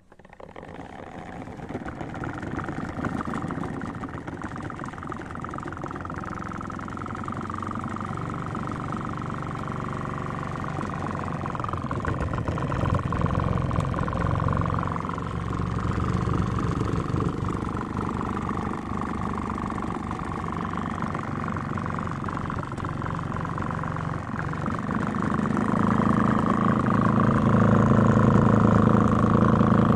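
Homemade washing machine's motor starting up and running steadily with a low mechanical hum, growing louder near the end.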